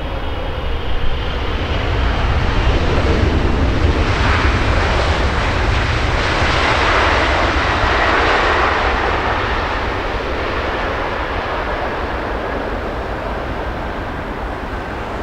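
Jet airliner passing low on final approach to land, its engine noise swelling to a peak about halfway through and then slowly fading as it goes by.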